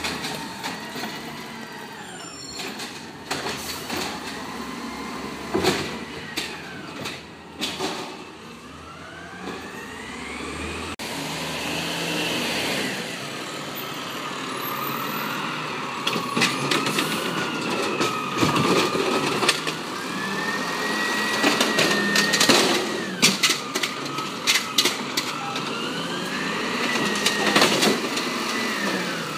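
Automated side-loading garbage truck working its cart-lifting arm: the engine revs up and down again and again, with a whine that rises and falls in pitch, among sharp clanks and bangs from the arm and the carts.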